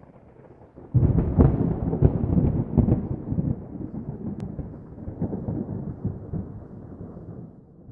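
Logo sound effect: a deep rumble that breaks in suddenly about a second in with a crackle and fades away slowly over the next several seconds.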